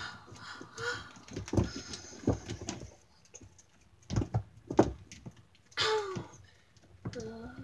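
Plastic wrestling action figures knocked against a toy wrestling ring and its corner post: several short, sharp knocks. A person's voice makes a short pitched sound effect about six seconds in and again near the end.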